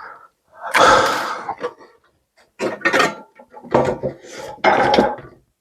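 Hard plastic and metal parts knocking and scraping as a replacement CPU cooler fan is fitted and squared up on the heatsink: about five separate clatters, the loudest about a second in.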